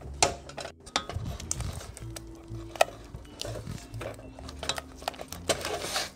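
Silicone spatula stirring thick custard cream in a stainless-steel saucepan, scraping and clicking against the pan's side and bottom over and over. Light background music with a bass line plays underneath.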